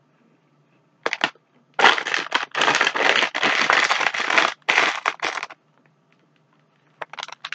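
Herr's cheese curls snack bag crinkling and rustling as it is handled, in a burst about a second in and then near-continuously from about two to five and a half seconds; a few short rustles follow near the end.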